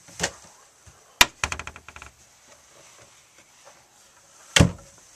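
Cabinet in an RV bedroom being worked: a sharp click about a second in, followed by a quick rattle of small clicks, then one loud knock near the end.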